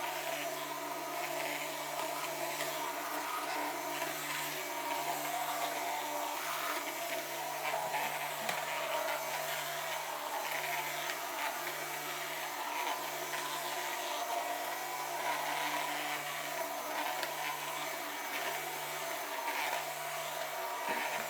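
Dyson V11 Absolute cordless stick vacuum running steadily with its basic cleaner-head attachment, a constant motor hum under a broad suction hiss.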